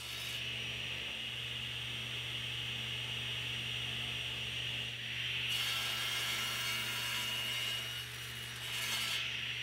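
Table saw running with its blade spinning at a steady whine, as Jatoba (Brazilian cherry) boards are cut to length on a crosscut sled. The sound gets louder and noisier about halfway in, and again briefly near the end, as the blade cuts through the wood.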